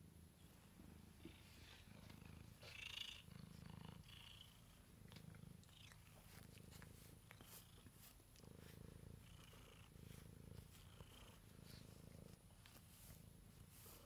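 Domestic black cat purring, a low purr that swells and fades with each breath about every second and a half.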